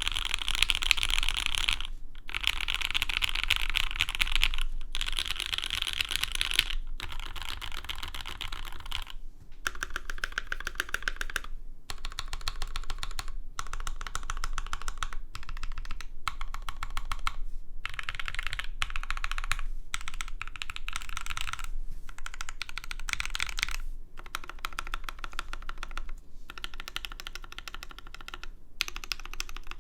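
Fast typing on a custom mechanical keyboard with lubed and filmed Alpaca v1 linear switches in a carbon-fibre plate, under GMK keycaps. The rapid keystrokes come in runs a second or two long, with brief pauses between them.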